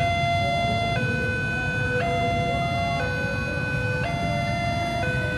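Two-tone electronic warning siren alternating between a lower and a higher pitch about once a second, over the low rumble of a CC 201 diesel locomotive's engine.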